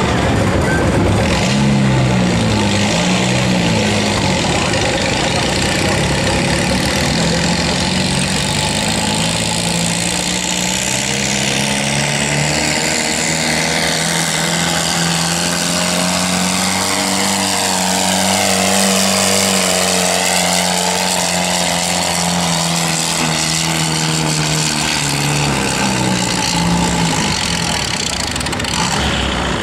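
Minneapolis-Moline U tractor's engine running hard under full load while pulling a weight-transfer sled, a loud continuous drone. Its pitch rises gently through the first half and eases down again toward the end, with the note bending as the tractor passes close by around the middle.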